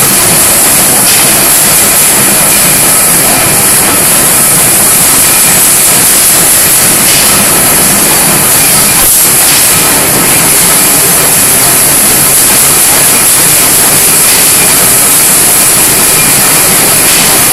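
Automatic square-tube bending machine, driven by servos, hydraulics and pneumatics, running with a loud, steady mechanical noise and a strong high hiss, with a faint steady whine underneath.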